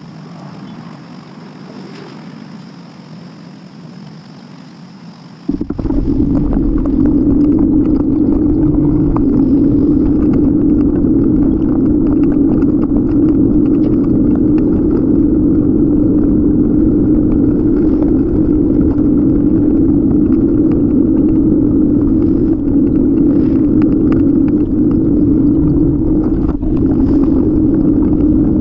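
Wind and road noise on a bike-mounted camera while cycling: a loud, steady rumble that starts suddenly about five seconds in, after a quieter stretch.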